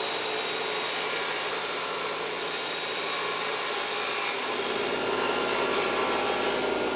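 Table saw running steadily, its blade cutting a shallow groove along a strip of white oak molding to add a detail to the profile. The sound grows a little louder about four and a half seconds in.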